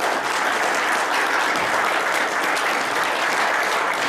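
Audience applauding steadily, a room full of people clapping after an award is announced.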